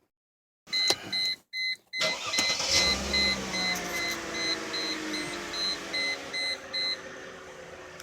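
Mercedes-Benz W210 engine starting about two seconds in and settling toward idle, with engine flush in its oil. A dashboard warning chime beeps steadily, about twice a second, until near the end.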